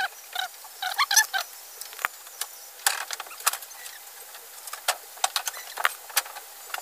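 Hands working the lead wires and insulating sleeves of an electric fan motor's copper stator winding: a scatter of small, irregular clicks and ticks.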